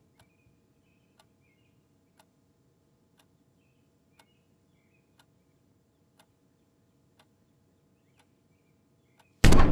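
A clock ticking steadily about once a second, with faint short chirps in the background. Half a second before the end a sudden loud noise breaks in.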